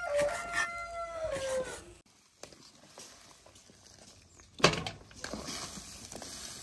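A rooster crowing: one long call that falls in pitch at the end, over about the first two seconds. After a break, a ladle clatters against the metal wok and steel basin about five seconds in.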